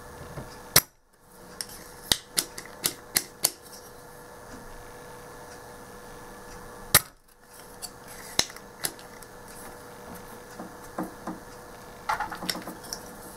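A spring-loaded solder sucker (desoldering pump) fires twice with a sharp snap, about six seconds apart, pulling molten solder from the old voltage regulator's joints. In between come lighter clicks and taps as the tool is handled and re-cocked.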